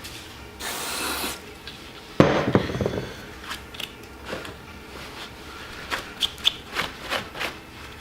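Metal tools and parts handled on a workbench: a brief scrape about a second in, a sharp clunk just after two seconds, then a scatter of light clicks and taps.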